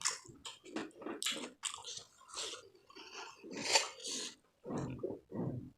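A person chewing food close to the microphone, with irregular crunchy bites several times a second.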